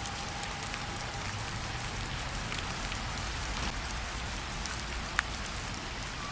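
Steady rain falling, an even hiss scattered with small drop ticks and one sharper drip about five seconds in. The tail of a held music note fades out in the first second.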